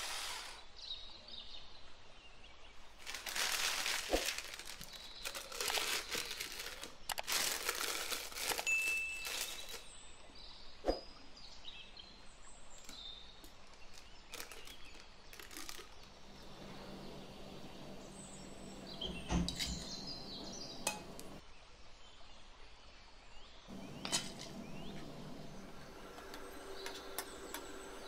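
Kitchen handling sounds: a silicone spatula scraping thick whipped cream around a glass bowl, a plastic piping bag crinkling, and occasional sharp clinks and taps. The sounds come irregularly, busiest in the first third.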